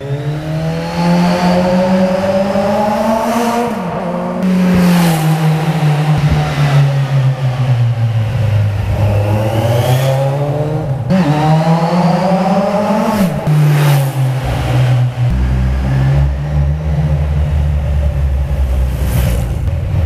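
Kawasaki Z1000 inline-four motorcycle accelerating past, engine pitch climbing as it revs and then falling sharply as it goes by, a few times over. Near the end there is a deeper steady rumble as it approaches again.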